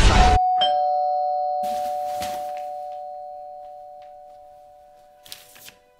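Two-tone doorbell chime: a higher ding, then a lower dong a moment after, both ringing on and slowly dying away over about five seconds.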